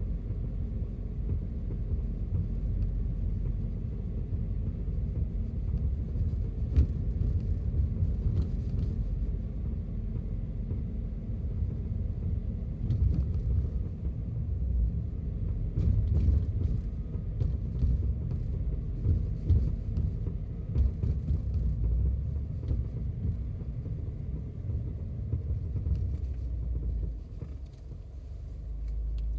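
Cabin of a Subaru WRX S4 at low speed: steady low road rumble, broken by irregular sharp knocks and cracks, the 'koto-koto' clunking and 'boki-boki' snapping from around the left front, near the passenger footwell. It is a fault noise that comes at about 20 to 40 km/h, going straight or steering left.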